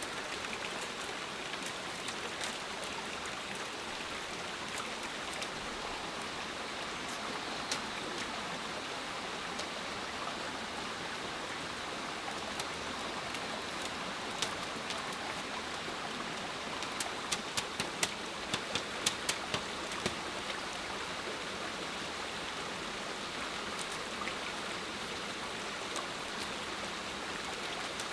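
Steady water noise, like rain or a stream, with scattered sharp clicks and a quick run of about eight clicks a little past the middle.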